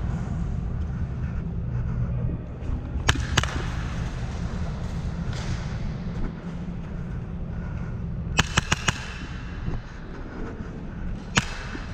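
Airsoft guns firing: two sharp shots, then about five seconds later a quick burst of about five, and one more shot near the end, over a steady low rumble.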